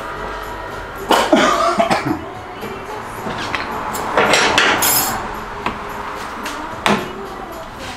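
Metal clanks and scraping of tools at the bare rear wheel hub and brake: a cluster of knocks about a second in, a scraping clatter with some ringing around four to five seconds, and one sharp knock near the end.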